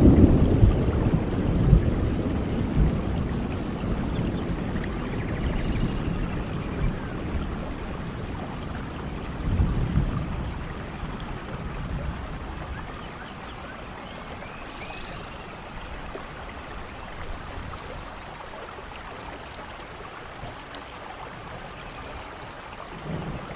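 Steady rain with rolling thunder. A low rumble fades away over the first several seconds, a shorter one comes about ten seconds in, and a new rumble begins near the end.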